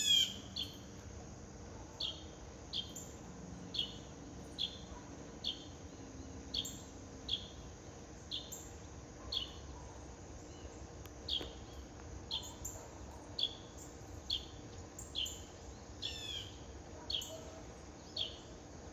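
A songbird calling over and over: a single short down-slurred whistled note repeated about once a second, with a louder, fuller note at the start and a quick run of falling notes about two-thirds of the way through.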